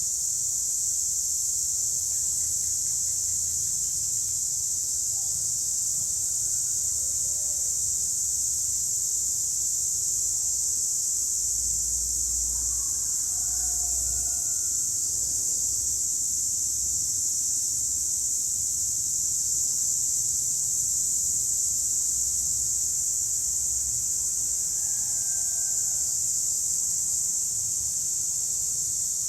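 A chorus of cicadas calling in one steady, high-pitched, unbroken drone.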